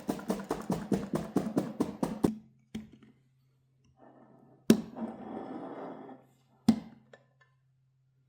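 Knife chopping quickly on a cutting board, about six strokes a second for two seconds. Then a knock, a sharp knock followed by a second or so of scraping, and another sharp knock near the end.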